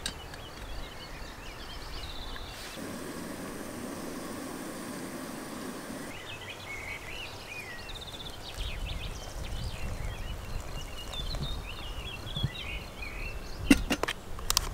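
Birds chirping and singing in short phrases, with a steady rushing noise for about three seconds a few seconds in. Near the end, a few sharp crackles as a foil freeze-dried meal pouch is torn open.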